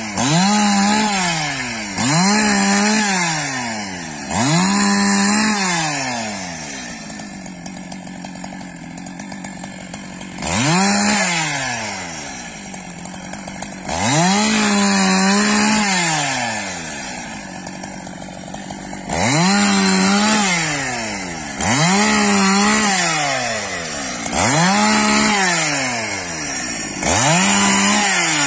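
Two-stroke chainsaw bucking thin poles one after another: the engine revs up to full throttle, holds while the chain cuts through each pole, then drops back to idle, about a dozen times, with a few longer idle spells between runs of quick cuts.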